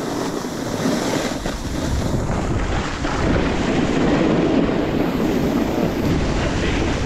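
Snowboards sliding and scraping over the snow, with wind rushing over the microphone. It gets a little louder about three seconds in as they pick up speed downhill.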